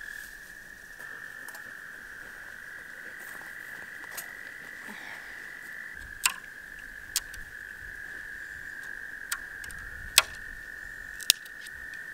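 A steady frog chorus trilling, with dry twigs snapped by hand several times in the second half, each a sharp crack.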